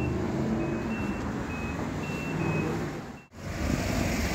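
City street traffic with vehicle engines running. Over the first three seconds, a run of short, high electronic beeps repeats at uneven intervals. The sound drops out briefly about three seconds in, then the traffic noise continues.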